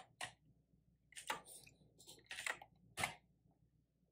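Typing on a computer keyboard: a few short, separate bursts of keystrokes as a terminal command is entered.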